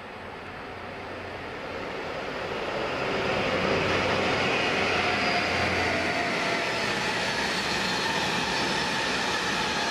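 Freight train passing close by at speed: the locomotive's engine hum grows louder over the first three seconds as it comes past, then a steady rush and rattle of hopper wagons rolling by on the rails.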